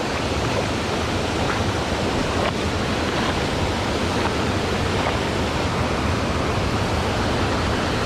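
Steady rush of creek water running over shallow rocks and a small waterfall.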